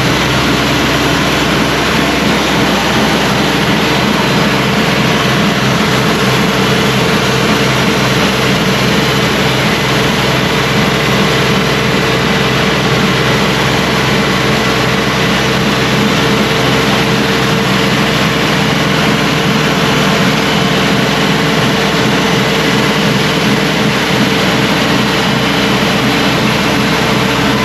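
Cook's AC 36 band sawmill running with its engine revved up, a loud steady machine sound. A few seconds in, a steady pitched tone joins it, fitting the blade going into the log.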